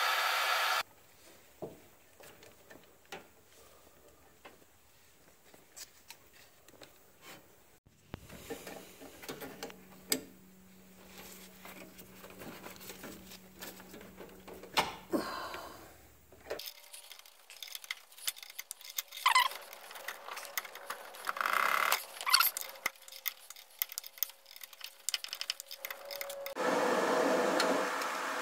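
A wrench and hands working on the steel brake line fittings at a brake proportioning valve: scattered metal clicks, taps and rubbing, with short squeaky scrapes in the second half. A louder steady noise of unknown source fills the first second and the last two seconds.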